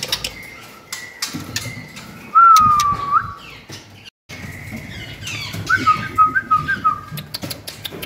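White-rumped shama whistling: one long clear whistle that falls and then hooks up, about two and a half seconds in, then a quick run of short whistled notes around six seconds, among scattered sharp clicks.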